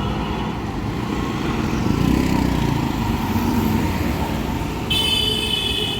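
Riding noise from a Bajaj Pulsar NS200 motorcycle under way: the engine runs with a dense low rush of road and wind noise. A high, thin steady tone joins about five seconds in.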